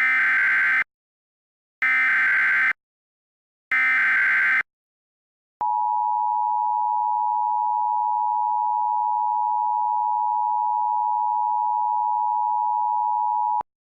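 Emergency Alert System tones generated by EAS encoder software: three short bursts of digital SAME header data, about two seconds apart, followed by the steady two-tone EAS attention signal, which holds for about eight seconds and then cuts off.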